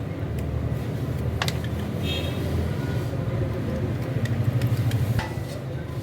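Steady low mechanical rumble that swells slightly near the end, with a couple of sharp metallic clicks, one about a second and a half in and one near the end.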